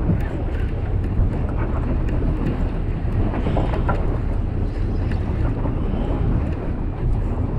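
Wind buffeting the microphone on a boat at sea: a steady low rumble.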